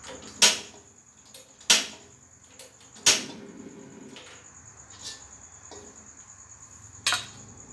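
Sharp metal clanks of a steel ladle and stainless-steel wok knocking together, each ringing briefly: four loud ones spread over several seconds with a few fainter taps between.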